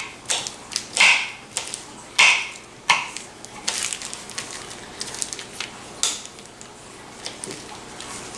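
Kitchen knives chopping and slicing on a cutting board: irregular sharp knocks as red bell pepper is cut and smoked sausage is sliced, the loudest few in the first three seconds.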